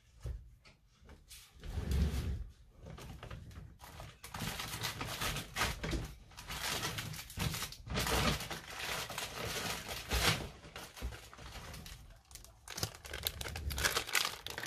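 Plastic packaging crinkling and rustling as it is handled, on and off in irregular stretches.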